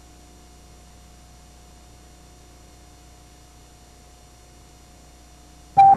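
Faint steady hum with a thin, steady tone over it. Just before the end a sudden loud sound cuts in.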